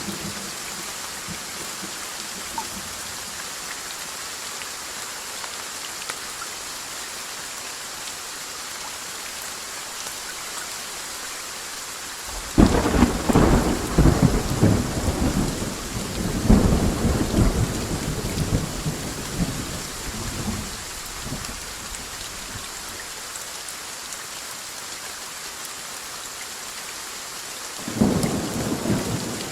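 Steady rain in a thunderstorm. About twelve seconds in, a clap of thunder breaks suddenly and rumbles on for several seconds before fading, and a second clap starts near the end.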